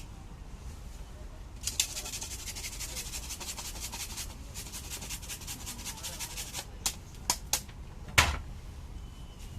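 Rapid crisp clicking at a fuchka stall for about five seconds, then four separate sharp knocks, the last the loudest.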